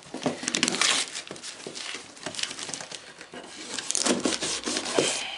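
Knife blade slicing and scraping through packing tape on a cardboard shipping box, in irregular rasping strokes with crinkling of plastic and tape.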